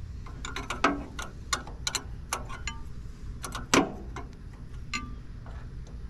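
Metal wrench clicking and clinking on the sawmill guide arm's adjustment bolts and jam nuts as they are tightened: an irregular string of sharp metal clicks, a few with a short ring.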